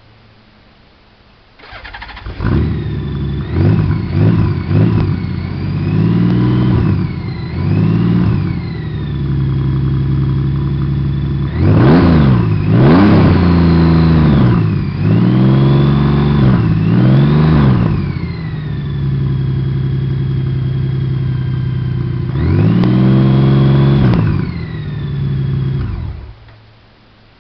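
2014 Honda Valkyrie's flat-six engine, breathing through short straight 'shorty' exhaust pipes, starting about a second and a half in, then revved with a run of quick throttle blips and several longer revs that rise and fall back to a steady idle. The engine is shut off about a second before the end.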